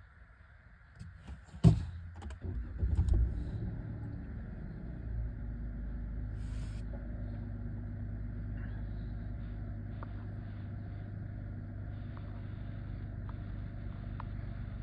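A 2015 Dodge Charger's engine being started: a sharp click, a brief crank and catch, then a steady idle.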